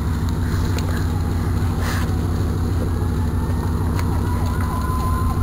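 Steady low engine rumble of a vehicle running nearby. From about two seconds in, a faint siren tone slowly rises in pitch. A couple of sharp cracks come over the top, about two and four seconds in.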